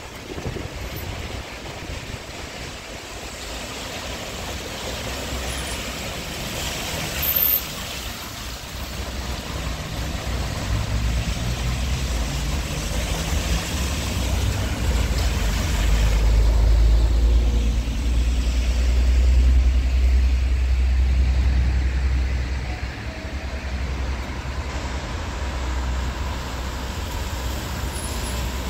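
Traffic on a wet city street: tyres hissing on wet asphalt as cars pass, and the low engine rumble of a bus, which builds to its loudest a little past halfway and then eases. A short sharp clunk sounds about a quarter of the way in.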